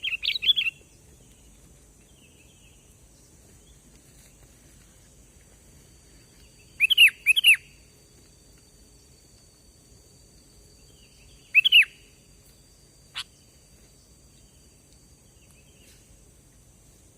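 Sooty-headed bulbul (kutilang) calling in short bursts of quick bubbly notes: one burst at the start, a two-part phrase about seven seconds in, and a shorter one near twelve seconds, over a steady high background hiss.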